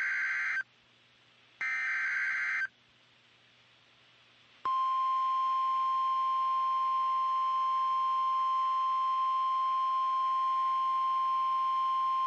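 NOAA Weather Radio Emergency Alert System signal, marking the start of a severe thunderstorm warning. It opens with the end of the SAME digital header, two short rasping data bursts about a second apart. After about two seconds of faint hiss, the steady single-pitch 1050 Hz warning alarm tone starts about four and a half seconds in and holds.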